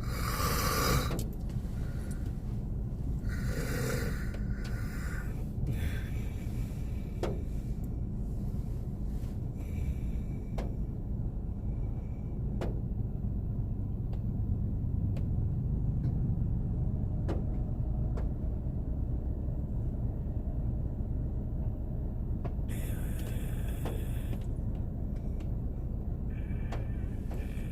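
A man snoring in a car, a few noisy breaths near the start and again near the end with a quieter stretch between, over the steady low rumble of the idling car. A few faint sharp ticks fall in the quiet stretch.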